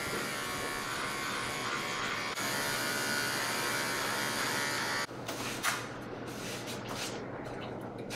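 Small electric pet trimmer buzzing steadily as it shaves the hair from a giant dog's paw pads. It gets a little louder about two seconds in and cuts off suddenly after about five seconds. Scattered short clicks and rustles of handling follow.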